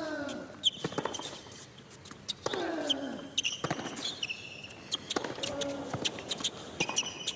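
Tennis rally on a hard court: several sharp racquet strikes on the ball, a player grunting with a falling pitch as he hits, and sneakers squeaking as the players run.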